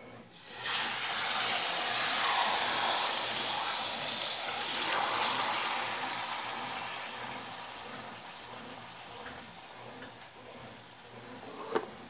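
A marinated pork leg hitting hot melted lard in a metal pot and sizzling hard as it begins to sear. The sizzle starts suddenly about a second in and slowly dies down. Near the end there is a sharp knock against the pot.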